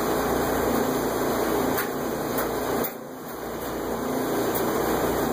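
Steady machine-like background hum, with a few faint light clicks as small metal retract parts are handled and the side plate is fitted.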